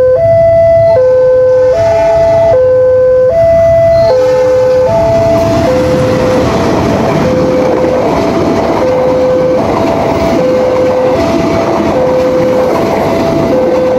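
Railroad level-crossing alarm sounding a repeated two-tone signal, switching between a high and a low tone a little under once a second, as a passing train's running noise swells up about five seconds in and partly covers the alarm.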